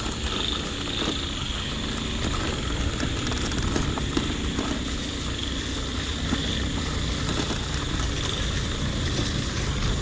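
Bicycle rolling over a rough dirt road: tyres crunching, the bike and its gear rattling and knocking, and a low rumble of wind and road shake on the bike-mounted microphone.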